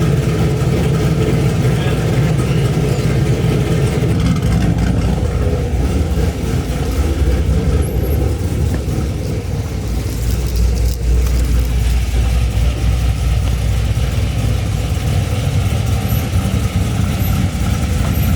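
A 2010 Camaro SS's 6.2-litre V8 running at low speed with a steady low rumble. Its note shifts about four seconds in and again about ten seconds in as the car is moved slowly.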